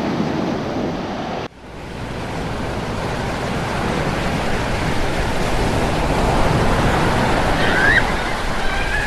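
Ocean surf washing in over a sandy beach, a steady rush of breaking and foaming waves heard from right at the waterline. It cuts out abruptly for a moment about a second and a half in, then builds back up.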